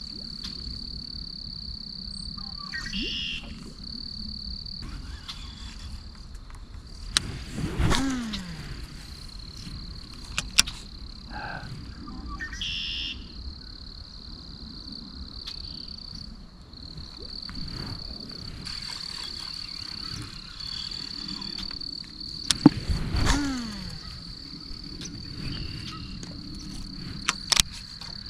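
Steady high-pitched insect chorus with a few short frog calls. Twice, about 8 and 23 seconds in, a sudden knock is followed by a whir that falls in pitch over about a second.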